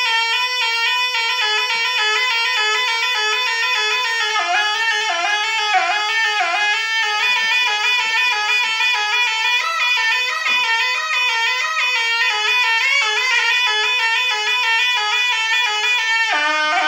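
Sompret, the Javanese double-reed shawm of barongan music, playing a melody without a break, with bends and quick ornamental notes.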